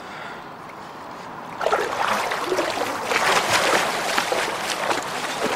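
Loud, choppy splashing of lake water by a person moving through it, starting suddenly about a second and a half in after a quieter stretch.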